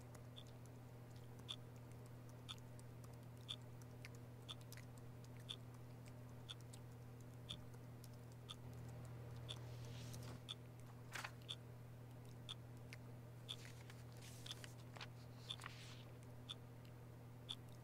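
A clock ticking steadily about once a second over a low, steady room hum, with a few brief soft rustles in the middle.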